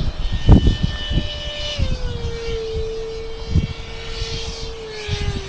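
Electric ducted fan of a Hobby Lobby F9F Panther RC jet whining steadily in flight, its pitch dropping about two seconds in and slightly again near the end. Wind gusts buffet the microphone, the strongest about half a second in.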